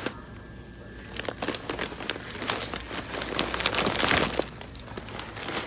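Crinkling and rustling from something handled close to the microphone: irregular crackles, loudest about three to four seconds in.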